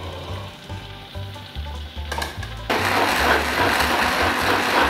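Faint sizzling of chilies and tomatoes in hot oil, then, about two and a half seconds in, a hand-held stick blender starts up loud and steady, pureeing the fried chilies, tomatoes, shallots and garlic into a paste in a plastic jug. A low pulsing music beat runs underneath.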